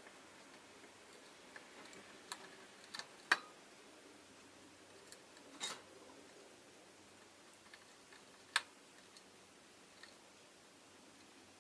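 Scattered light clicks and taps from a rosy-faced lovebird, about eight over the stretch, the sharpest about three and a half and eight and a half seconds in.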